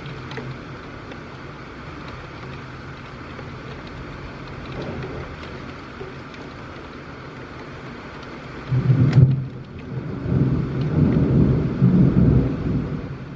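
Steady rain, then a loud rolling rumble of thunder that begins about two-thirds of the way in and swells and wavers to the end.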